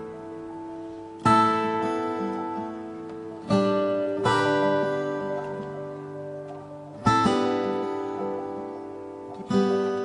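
Background music: an acoustic guitar strumming slow chords, five strokes, each left to ring out before the next.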